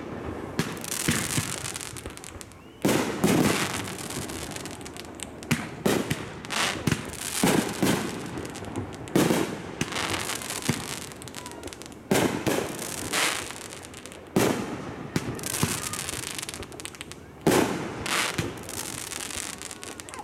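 Aerial fireworks shells bursting one after another: sharp bangs every one to three seconds, each followed by a fading rumble.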